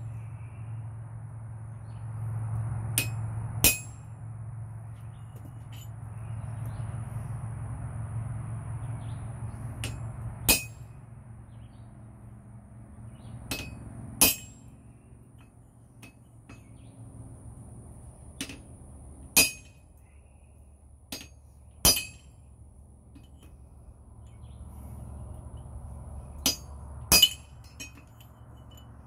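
Blacksmith's hand hammer striking red-hot steel on an anvil in occasional single blows and close pairs, a few seconds apart, each with a short metallic ring.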